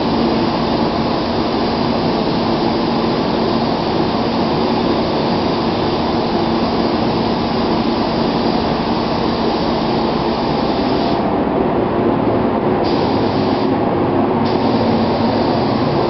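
Gravity-feed automotive spray gun hissing steadily with compressed air as it sprays clear coat onto a car body, over a steady hum. The higher part of the hiss briefly thins twice, about three-quarters of the way through.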